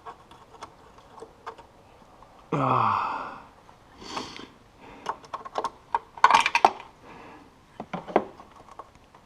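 Intermittent metallic clinks, taps and knocks of hand tools and exhaust parts being worked on a snowmobile, with a short groan falling in pitch about two and a half seconds in and a quick run of sharp clinks past the middle.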